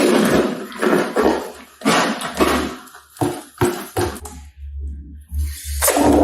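Slime being squeezed and squished by hand: a run of irregular wet squelches and crackles, falling quiet for about a second near the end.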